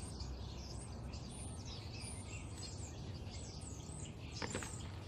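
Small birds chirping and twittering over a steady low background noise outdoors, with a brief sound about four and a half seconds in.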